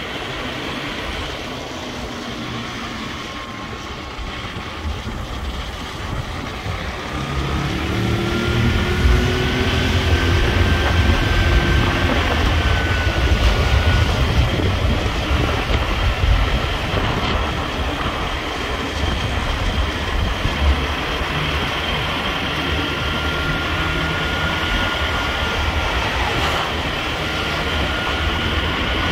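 Vehicle on the move: a continuous low rumble of engine and road noise that grows louder about seven seconds in, with a faint high whine coming and going.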